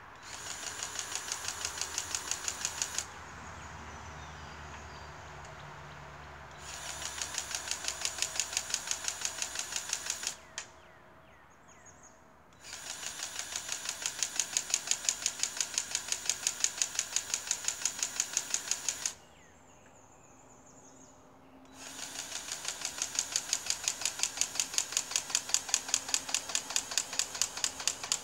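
Powered grease gun pumping grease into a crawler dozer's grease fitting: rapid, even clicking pulses, about five a second, in four runs of a few seconds each with short pauses between.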